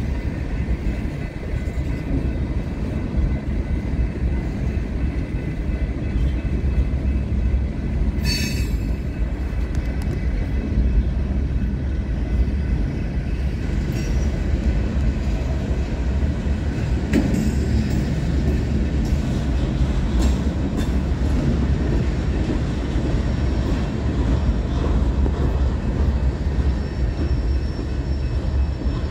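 Freight train cars rolling past: a steady rumble of wheels on rail, with a couple of brief sharp high sounds about eight seconds in and again past the middle.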